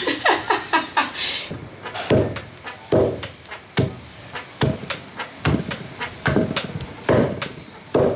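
Fufu being pounded with a wooden pestle in a wooden mortar: a steady run of dull, heavy thuds, a little over one a second, starting about two seconds in.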